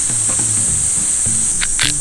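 Beef steaks sizzling on a 6 mm thick iron griddle plate, a steady high hiss, under background music with a low repeating bass line. About one and a half seconds in, a fast, even rattle of about six strokes a second comes in.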